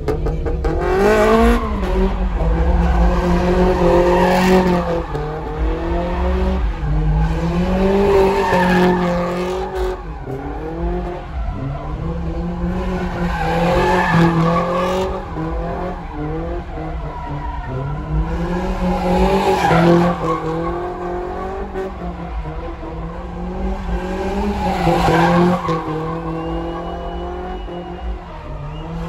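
A car doing a burnout or drift: its engine revs up in repeated surges about every five or six seconds while the tyres squeal.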